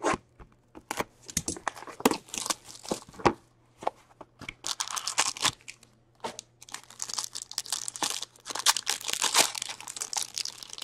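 Upper Deck Chronology hockey card box being handled and a card pack's wrapper crinkling and tearing as it is opened by hand. A run of clicks and taps first, then from about halfway in, steady crinkling and tearing of the wrapper.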